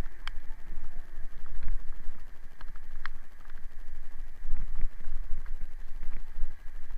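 Wind buffeting and road rumble on a bicycle-mounted camera riding over wet pavement, with a few sharp clicks and rattles from the bike or mount.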